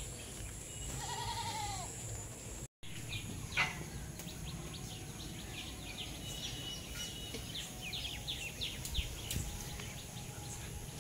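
Birds chirping with many short, quick calls over steady outdoor background noise, with one drawn-out animal call about a second in.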